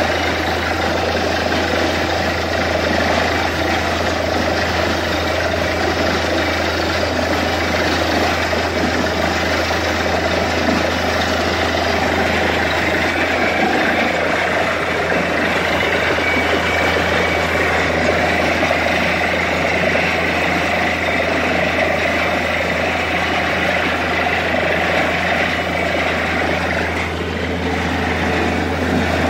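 Truck-mounted borewell drilling rig running steadily with a constant low drone, with water gushing out of the freshly drilled bore.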